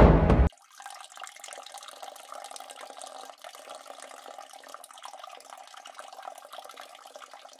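Music cuts off about half a second in, then a faint, steady trickle of liquid running into a bottle: someone urinating into a bottle.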